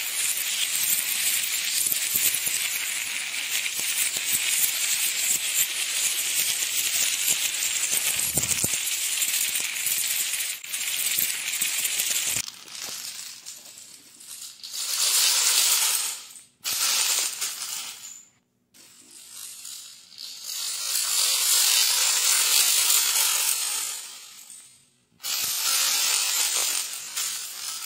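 Dominoes toppling in chain reactions, a dense clatter of many small pieces knocking against each other and onto a hard tiled floor. It runs without a break for about twelve seconds, then comes in four shorter bursts separated by brief pauses.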